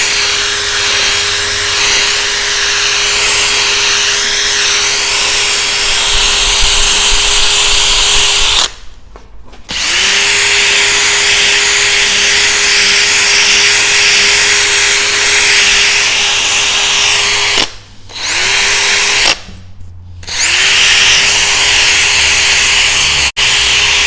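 Cordless drill spinning a 500-grit sanding disc against a plastic headlight lens: a steady motor whine over sanding hiss. The trigger is let off three times, about 9, 18 and 20 seconds in, and the drill spins back up each time.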